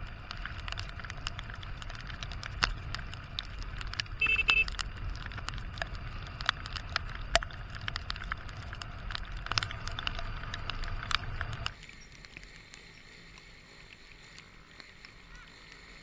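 Honda XR150 single-cylinder motorcycle riding in the rain, heard from an on-board camera: a steady engine and wind rumble with raindrops ticking sharply on the camera. A short beep comes about four seconds in, and the rumble drops sharply about twelve seconds in.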